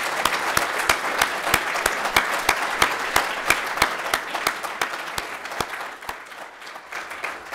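Audience applauding, with one person's sharper, regular claps close to the microphone, about three a second. The applause thins out near the end.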